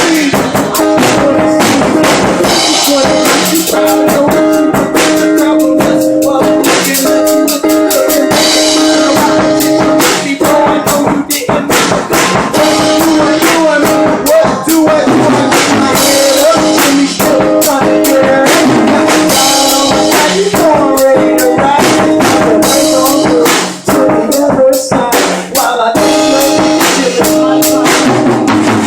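Hip-hop instrumental beat: a drum kit with kick and snare hits over a sustained melodic backing.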